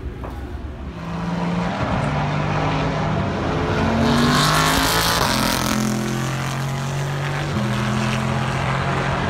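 Race car engine at speed on the circuit, its note holding and then stepping in pitch through gear changes. It grows loud as the car passes about four to six seconds in.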